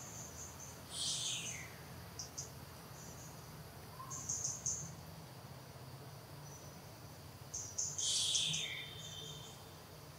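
Forest insects and birds chirping: short high-pitched chirps repeat throughout, with two louder calls that fall in pitch, one about a second in and one about eight seconds in.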